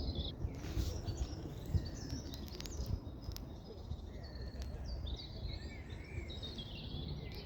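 Small birds chirping and singing, short high calls scattered throughout, over a steady low outdoor rumble.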